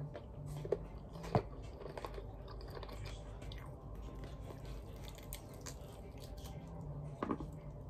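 A person chewing and biting chicken skin, with a few sharper snaps among the smaller clicks of chewing.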